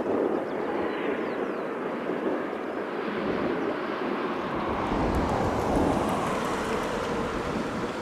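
Twin jet engines of a Boeing 777-300 airliner making a steady rushing noise. About five seconds in the sound grows fuller, with a deep rumble coming in underneath and a hiss rising in the highs.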